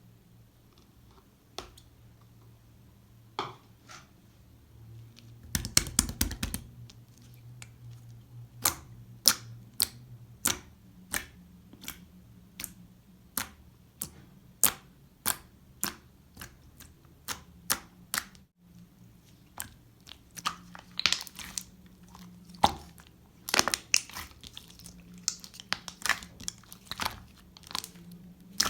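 Pink clear slime being pressed and stretched by hand, making sharp wet pops and clicks as trapped air bursts, about one a second, then in quicker clusters near the end.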